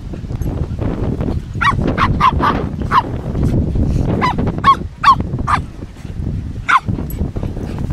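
Dogs barking in play: a quick run of about ten short, sharp barks, most of them packed into the middle few seconds, with one more near the end.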